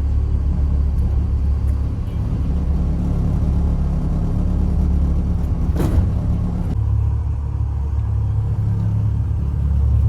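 Steady low rumble of a moving vehicle, with one brief click about six seconds in.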